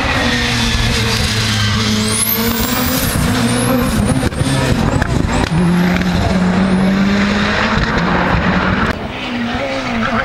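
Lancia Delta hillclimb car's 2.0 turbo engine running hard as it races by, with a few brief dips in the engine note and high turbo whistles that rise and fall about two to four seconds in. The sound drops away about nine seconds in.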